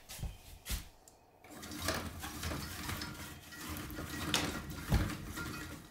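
A window blind being lowered: a couple of light clicks, then about four seconds of continuous mechanical rattling with a faint steady hum as it runs down.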